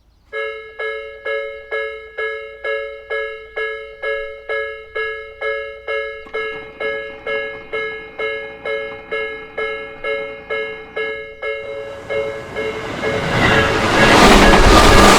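Japanese railway level crossing alarm ringing in a steady two-tone pattern, about two strokes a second, starting just after the opening. From about 12 seconds a Tobu Isezaki Line train approaches and passes, its running noise growing over the bell until it is loudest near the end.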